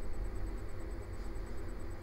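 Steady low rumble and faint hiss of background noise, with no distinct sound events.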